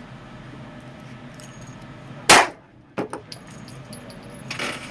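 A single handgun shot about two seconds in, sharp and loud, followed by a few lighter metallic clicks.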